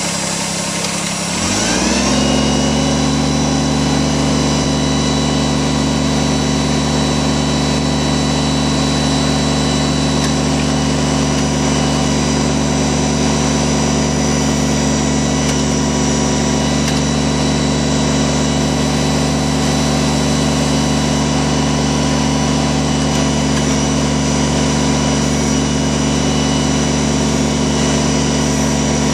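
Kubota BX24 tractor's three-cylinder diesel engine rising in speed about a second and a half in, then running steadily at high speed.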